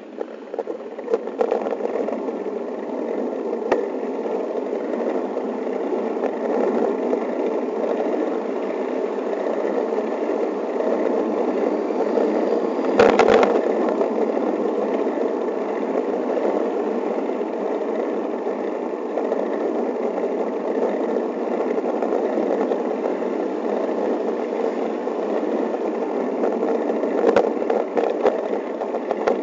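Steady wind and road noise on a bicycle-mounted camera while riding, building over the first couple of seconds as the bike gets moving. Occasional rattles and knocks from the mount over bumps, the loudest a thump about thirteen seconds in.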